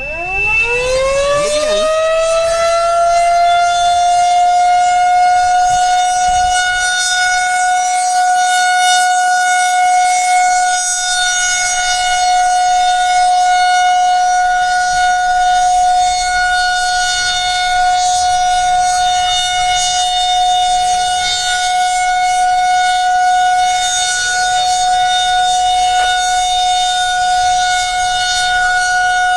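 Outdoor civil-defense warning siren winding up in pitch over the first few seconds, then holding one steady tone, with a fainter lower siren tone underneath, sounded for a tornado warning.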